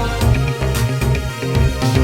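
Background music with a steady electronic beat and strong bass.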